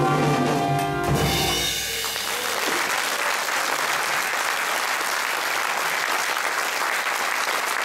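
A jazz quintet of alto saxophone, trumpet, guitar, double bass and drums holds its final chord, which cuts off about a second in. Audience applause follows and keeps going.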